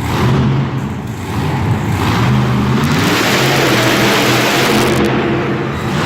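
Monster truck's big engine running loud and revving, its pitch climbing about two seconds in and peaking in a louder rush over the next couple of seconds before easing.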